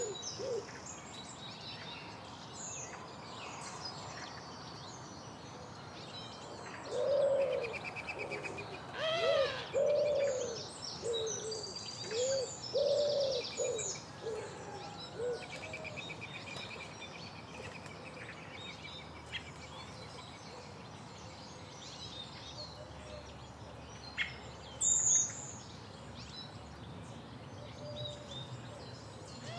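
Woodland birdsong: several small birds chirping and trilling high up, with a louder run of low repeated notes from about seven to fourteen seconds in and a brief loud high call near the end.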